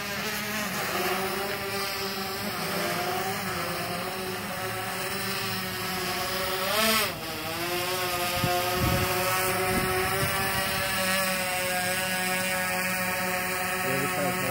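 Yuneec Typhoon H hexacopter's six propellers whining in flight: a steady drone of several tones that waver in pitch. About seven seconds in, the pitch swoops up, briefly louder, then drops sharply.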